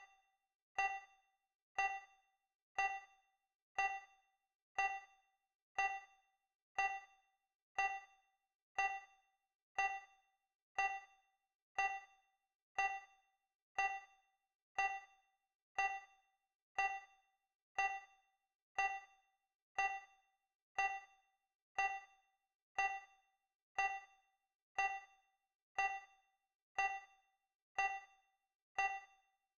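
Countdown timer sound effect ticking once a second: each tick is a short ringing ding that dies away quickly.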